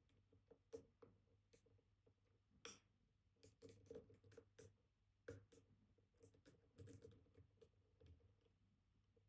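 Faint, irregular small clicks and light scraping of a dimple pick working the spring-loaded pins of a Kaba Titan Combi high-security dimple lock held under tension, a few clicks a second with pauses between.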